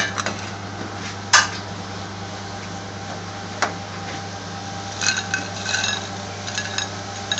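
A white ceramic plate knocking on a counter three times, then a run of light ringing clinks as chips are tipped onto it from a cloth. A steady low hum runs underneath.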